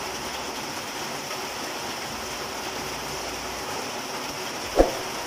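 Steady rain falling on a corrugated metal roof, an even hiss. About five seconds in comes one short sharp snip as scissors cut into plastic bubble wrap.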